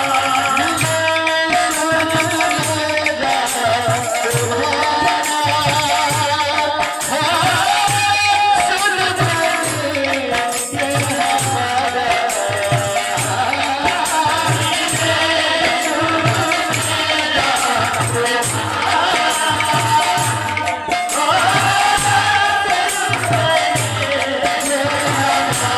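Kirtan devotional music: a male singer chanting a gliding melody through a microphone and PA, over double-headed barrel drums beating a steady rhythm, about two or three strokes a second, with a constant metallic jingle on top.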